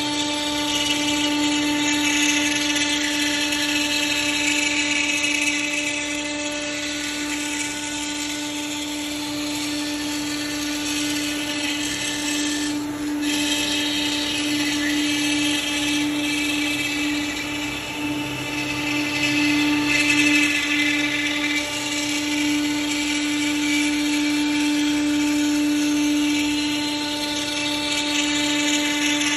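CNC router spindle running steadily at a high pitch while its bit cuts through a plank of old wood, the cutting noise swelling and easing as the bit moves.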